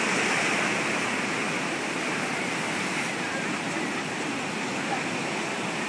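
Ocean surf washing and breaking below the pier, a steady rush of water noise that is a little louder at the start.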